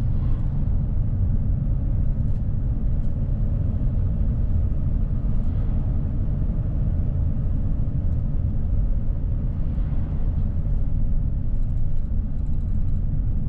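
Steady, loud low rumble of engine and road noise heard inside a vehicle being driven along a highway.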